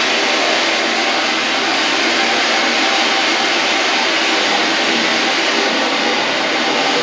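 Steady, loud rushing noise with a faint hum, from the soundtrack of a projected film clip playing over the hall's loudspeakers.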